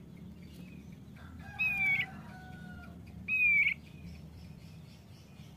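Male thick-billed white-eye (opior paruh tebal) giving two loud, clear, steady high whistled notes, each under half a second, about a second and a half apart. A fainter, longer, lower drawn-out call sounds underneath the first note.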